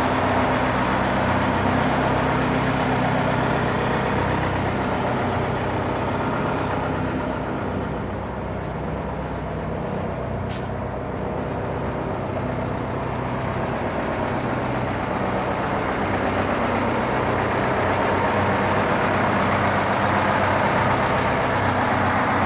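Engine of a 1975 GMC Van Pelt fire tanker truck idling steadily, fading a little about eight seconds in and getting louder again toward the end.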